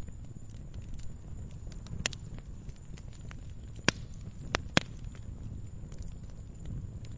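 Wood fire burning in a fireplace: a steady low rumble of flames with scattered crackles and pops, the sharpest pops about two, four and five seconds in.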